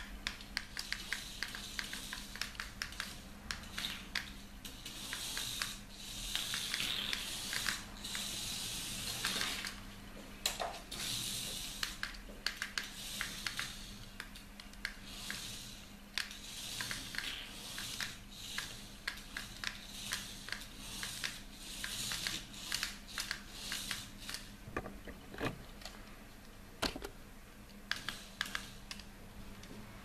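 Micro RC racing car's tiny electric drive motor and gears whirring in short bursts, swelling and dropping as it drives. Rapid sharp clicks run throughout.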